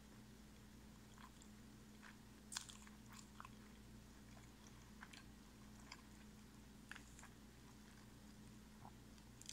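Faint chewing of breaded chicken strips with the mouth closed: scattered soft crunches and mouth clicks over a low steady hum, the loudest crunch about two and a half seconds in.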